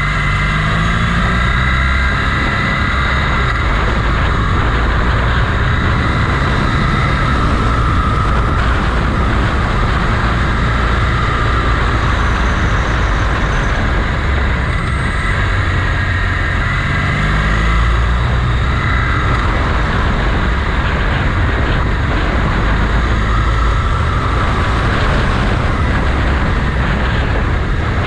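Motorcycle engine running under way with a steady rush of riding wind noise. The engine note rises twice as it accelerates, once about a second in and again a little past halfway.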